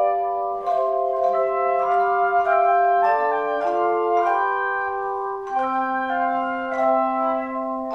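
Organ music: slow, sustained chords held for about half a second to a second and a half each, moving through a hymn-like progression.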